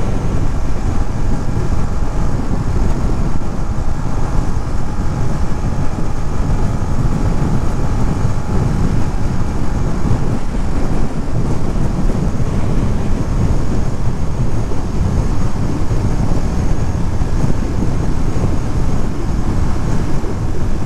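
Ducati Monster's V-twin engine running steadily at highway speed, with wind rushing over the helmet-mounted microphone.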